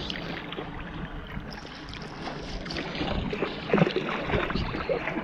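Lake water sloshing and splashing around people moving in the water, with a louder splash a little under four seconds in.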